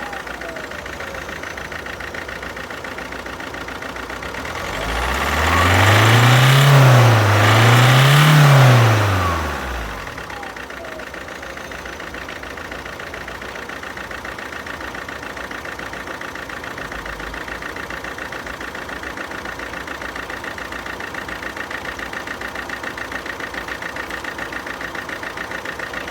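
Alfa Romeo Giulietta's 1.6-litre diesel engine idling, revved twice in quick succession about five seconds in, then settling back to idle with a regular pulsing beat. One cylinder has no compression.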